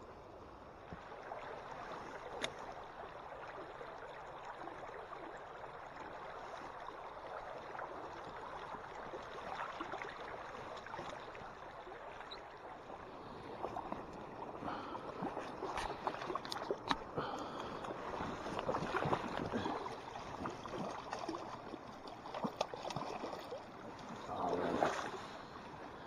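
Flowing river water rushing steadily around a wading angler, with a few sharp clicks. About halfway through the water sounds grow busier and louder as a hooked trout is played and netted.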